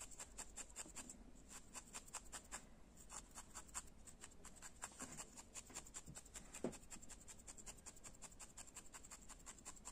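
Felting needle stabbing again and again into wool: a faint, rapid, even scratchy ticking, several stabs a second.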